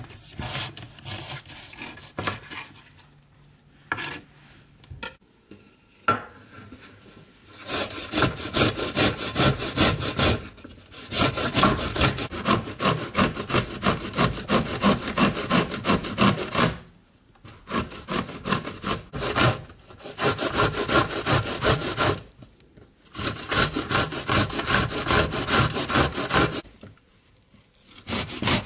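Raw eggplant grated on a stainless steel box grater, in rhythmic rasping strokes of about three a second. The strokes come in runs with brief pauses between them. Before the grating, a few quieter knocks of a knife cutting the eggplant on a wooden board.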